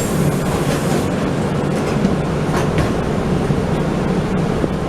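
Steady engine drone and road noise heard from inside a city bus under way.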